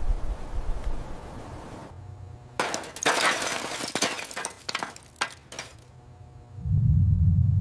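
A run of sharp, irregular crunching and clinking impacts, like glass breaking, then a low steady hum starts near the end.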